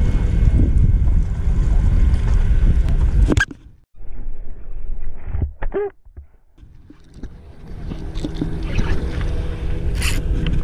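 A boat's engine runs with a steady low rumble and wind buffets the microphone. The sound cuts off suddenly about a third of the way in and stays low, with one brief rising squeak. The rumble then fades back in over the last few seconds, with a couple of clicks near the end.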